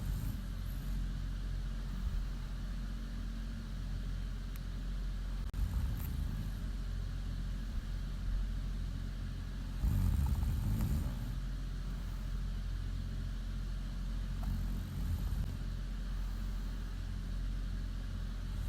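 A woman snoring in her sleep: a low, rough snore swelling roughly every five seconds, the strongest about ten seconds in, over a steady low hum.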